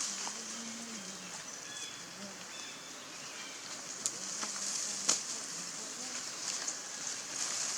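Outdoor background with a steady high hiss and faint, distant voices, broken by two sharp clicks about four and five seconds in.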